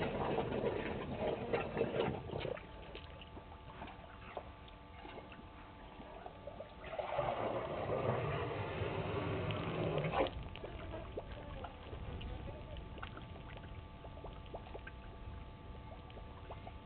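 African elephant bull drinking: water sloshing and gushing as it empties its trunk into its mouth. There is one stretch at the start and another of about three seconds beginning some seven seconds in.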